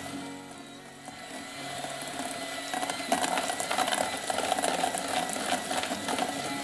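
Electric hand mixer running, its beaters creaming softened butter in a stainless steel bowl. The motor whines steadily, with a rattle from the beaters, and briefly sounds quieter about a second in.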